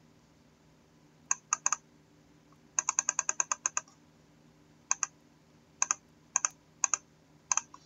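Computer keyboard typing in short bursts: three keystrokes, then a quick run of about ten, then single and paired keystrokes spaced about half a second to a second apart.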